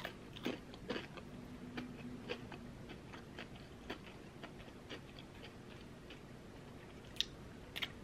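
Chewing a mouthful of flaky cream cheese Danish pastry: soft, irregular wet mouth clicks and smacks, with two sharper clicks near the end.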